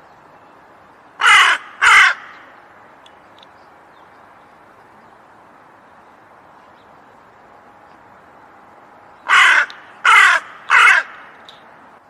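A crow cawing: two caws a little over a second in, then three more in quick succession near the end.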